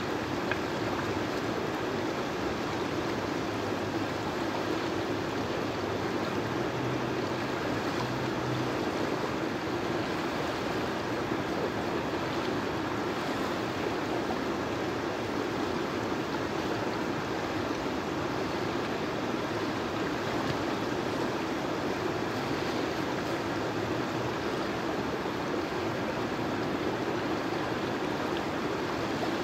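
Shallow river water rushing steadily over and between rocks in a rapid.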